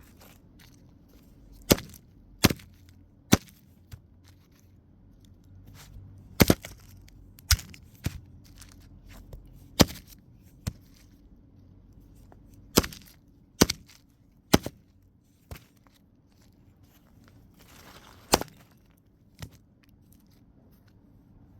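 Sharp, separate knocks and taps, about fifteen of them at irregular intervals with quiet between, as the phone is handled and pressed together.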